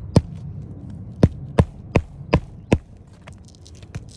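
Hammer blows driving roofing nails into an asphalt three-tab shingle: one strike just after the start, then a quick run of five about a third of a second apart, and two lighter taps near the end.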